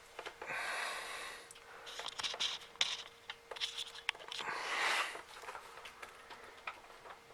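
Plastic vacuum-cleaner parts being handled and fitted back together, with two rasping scrapes of about a second each and small clicks and knocks between them.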